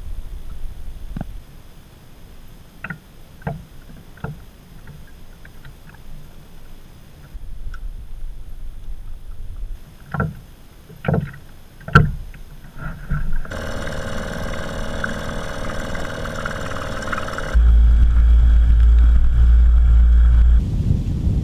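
Knocks and bumps on a rowboat's hull, the loudest about twelve seconds in, followed by water rushing and splashing past the moving boat with a heavy low rumble near the end. The sound changes abruptly several times.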